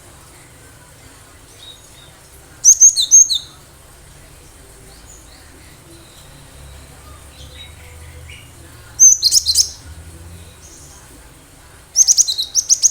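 Cinereous tit singing: three short bursts of rapid, high, loud chirping notes, about three seconds in, about nine seconds in, and again near the end.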